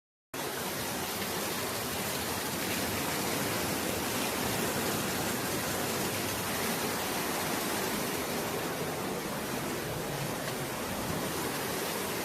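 Strong wind and rain in a storm: a steady, even rushing hiss that holds level throughout.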